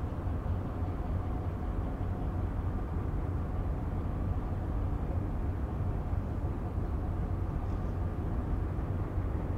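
Steady low rumble of ships' diesel engines running in a harbour, with a faint hum of engine tones over it.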